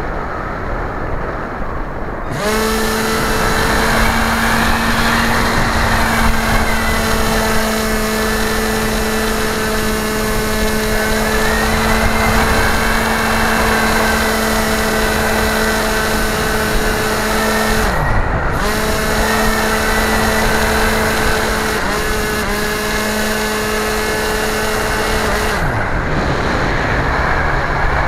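Onboard sound of a radio-controlled model aircraft's motor and propeller: a steady hum starts about two seconds in, winds down and cuts out briefly a little past the middle, comes back, then winds down again near the end. Wind rushes over the microphone whenever the motor is off.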